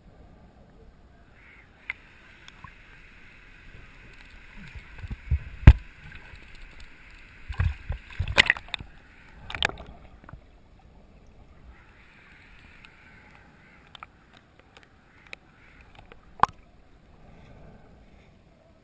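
Underwater sound picked up by a submerged camera: a faint hiss of water that comes and goes, with a cluster of loud knocks and thumps in the middle and one more sharp knock near the end.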